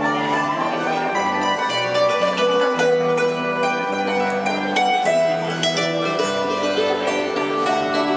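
Hammered dulcimer and acoustic guitar playing a tune together: many quick, ringing struck notes over a line of lower notes that changes every half second or so.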